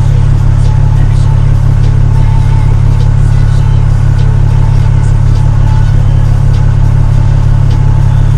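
Snowplow vehicle's engine running at a loud, steady drone, with a few faint ticks over it.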